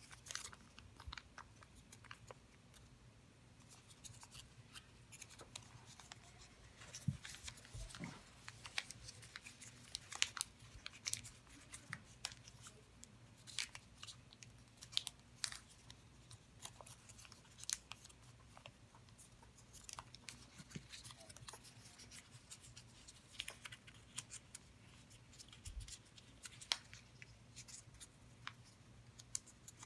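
Origami paper being folded and creased by hand: faint, irregular crinkling and small crackling snaps of the sheet.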